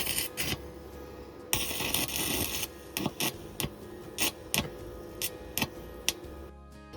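Stick-welding arc striking and crackling in short bursts while tack welds are laid: a brief sizzle at the start, a longer one of about a second shortly after, then a string of sharp pops and crackles as the electrode is struck again and again.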